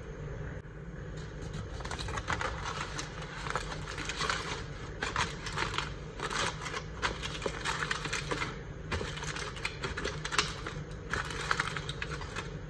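Aluminium foil crinkling and rustling in irregular bursts as it is pressed and folded over the top of an ice-cream container, over a steady low hum.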